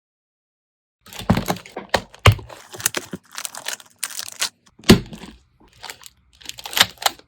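Plastic sticker packaging being handled: irregular crinkling and tearing rustles with a few sharp clicks, starting about a second in.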